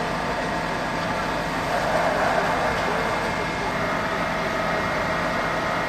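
Fire-truck engines running with a steady drone, with a murmur of voices behind.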